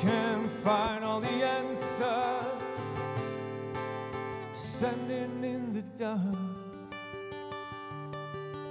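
Live acoustic song: a man singing a held, wavering melody over a strummed acoustic guitar. The voice stops about six seconds in and the guitar plays on alone.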